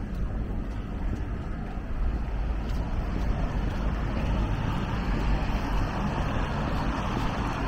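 Rainy city street ambience: road traffic on wet roads with a steady low rumble, the hiss growing louder about halfway through.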